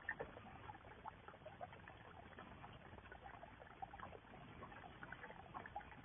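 Faint, irregular patter of small splashes and drips of water in a garden pond, many short ticks scattered throughout.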